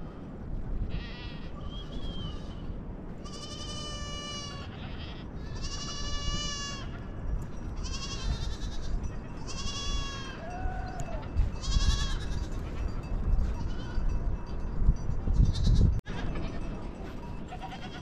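Small livestock bleating: a series of wavering, high-pitched bleats, each about a second long, roughly one every two seconds, over a low rumble that grows louder near the end.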